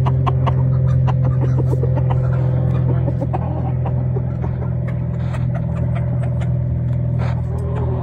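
A steady low mechanical hum, like an engine running, with scattered sharp clicks over it.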